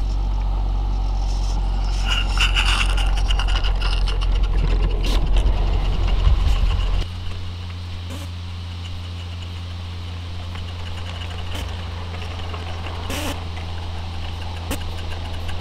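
Large-scale garden-railway train running along the track: a steady low rumble with a few scattered clicks. The rumble drops sharply about seven seconds in, then continues as a quieter steady hum.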